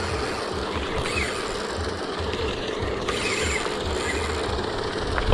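Paddlewheel pond aerator running, a steady mechanical churn from its motor, gearbox and spinning paddles.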